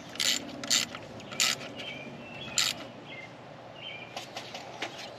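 A small ratchet wrench clicking in short bursts as it is swung back and forth, tightening the nut on the alternator's wiring terminal: four sharp bursts in the first three seconds, then fainter ticks. A few short bird chirps come in the middle.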